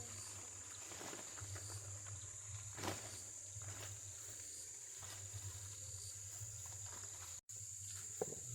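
Faint outdoor ambience with a steady high-pitched insect drone, and a single sharp knock about three seconds in.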